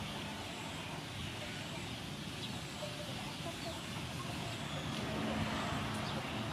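Steady outdoor background noise with faint bird calls.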